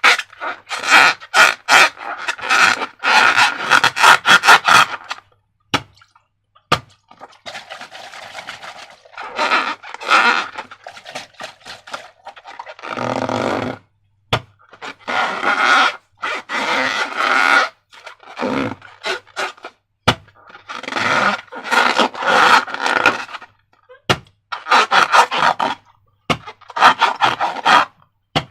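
Sticky slime squelching and crackling in repeated bursts of a second or two, with short pauses and a few sharp clicks between them.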